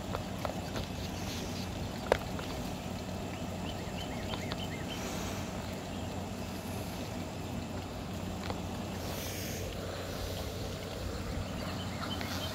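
Steady outdoor background noise with a low hum. A sharp click comes about two seconds in, and a few faint short high chirps follow a little later.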